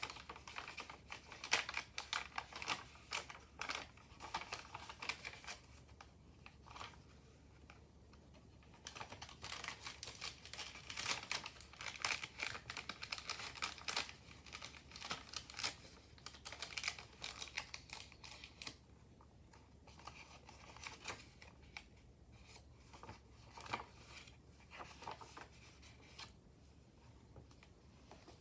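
Pages of a handmade junk journal being turned and handled: paper and ephemera rustling, crinkling and clicking in quick runs, busiest near the start and through the middle, then sparser.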